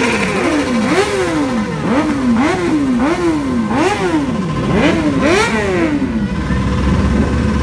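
Sport motorcycle engine revved in a quick series of throttle blips, each a sharp rise and slower fall in pitch, stopping about six seconds in. Other motorcycle engines run steadily underneath.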